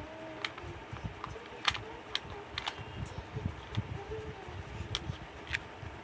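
Irregular soft thumps and scattered sharp clicks from a child dancing barefoot on a bed.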